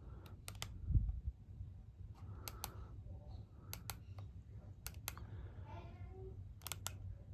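Sharp double clicks every second or two, unevenly spaced, over a steady low hum, with one dull thump about a second in.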